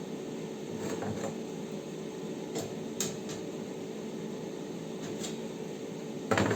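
A few light clicks and taps over a steady hum, with a louder clatter near the end.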